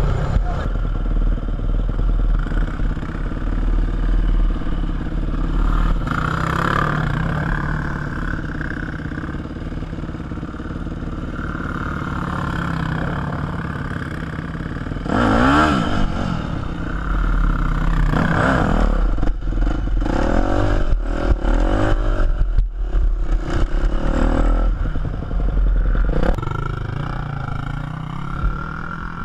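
Yamaha YZ250F motocross bike's four-stroke single-cylinder engine revving up and down repeatedly as it accelerates over loose gravel, heard from the rider's helmet with wind rumbling on the microphone.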